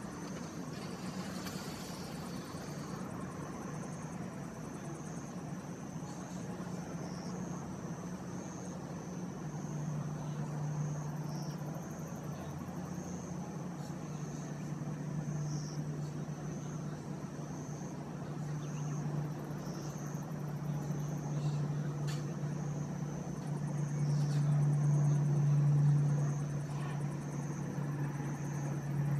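Outdoor ambience: a steady low mechanical hum, like a vehicle engine or traffic, swelling for a few seconds near the end, with insects trilling steadily and high above it, broken by brief pauses.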